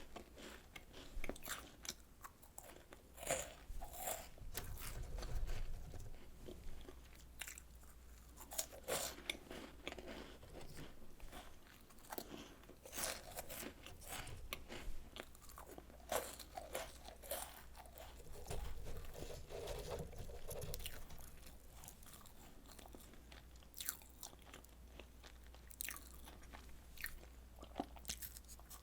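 Close-miked crunching and chewing of Home Run Ball cookies, small crisp puff-pastry balls filled with chocolate cream, made extra crisp in an air fryer. There are many sharp crackling bites and chews, with duller chewing stretches about five seconds in and again near twenty seconds.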